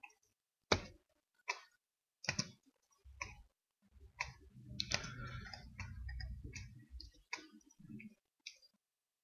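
Computer mouse clicking: sharp single clicks roughly a second apart, then a soft low rustle for a couple of seconds with a few fainter clicks after it.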